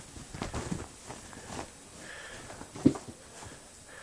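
Rustling and scuffling on soft bedding as a cat plays, with a few soft knocks in the first second or two and one sharp thump about three seconds in.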